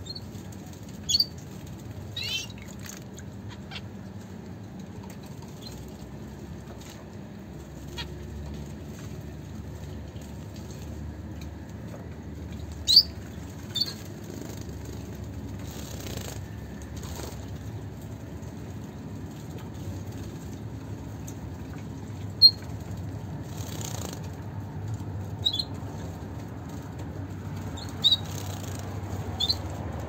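Zebra finches giving short, sharp high calls every few seconds over a steady low hum, with a couple of soft fluttering splashes as a finch bathes in a shallow water dish.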